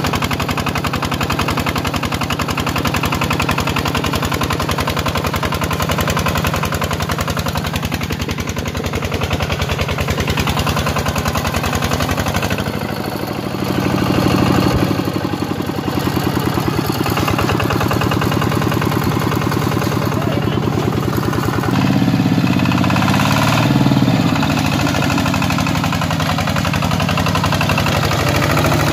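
Single-cylinder diesel engine of a two-wheel walking tractor running under load with a rapid, steady chugging. It swells louder about halfway through and again a little later.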